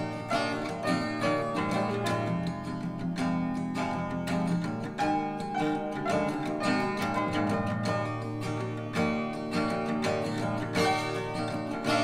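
Acoustic folk music played back through hi-fi loudspeakers and recorded by a microphone in the room: a steady stretch of plucked acoustic guitar with no vocals.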